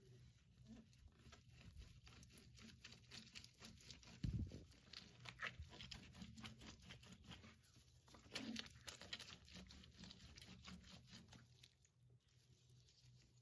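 Faint crunching, scraping and tearing from raw ingredients being prepared by hand: a dense run of small crackly clicks with a soft thump about four seconds in.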